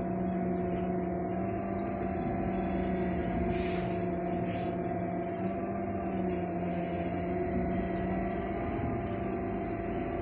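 Trolleybus electrical hum heard inside the passenger cabin: several steady tones over a low rumble, with a few short high rattles or hisses about three and a half, four and a half and six and a half seconds in.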